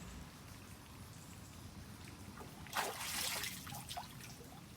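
Water in a shallow pond splashing and trickling: a short splash about three seconds in, followed by a few small drips and trickles.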